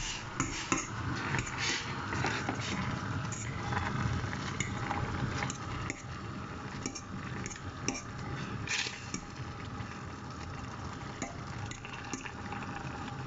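Instant noodles and sauce being stirred in a pan, the utensil clinking and scraping irregularly against the pan over a steady hiss.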